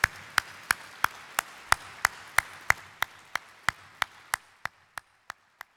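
A man clapping his hands close to his microphone, a steady beat of about three claps a second that grows fainter near the end, over a fainter audience applause that dies away three to four seconds in.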